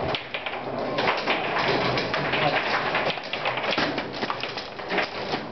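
Table football in play: a rapid, irregular clatter of the ball knocking against the plastic players and the rods rattling as they are slid and spun.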